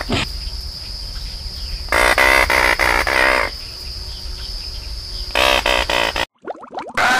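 Electronic soundtrack sound effects: a steady high whine and low hum, broken twice by loud, buzzing, pulsing bursts, about two seconds in and again about five and a half seconds in. The whole sound cuts off about six seconds in, and a cartoonish run of sliding tones begins.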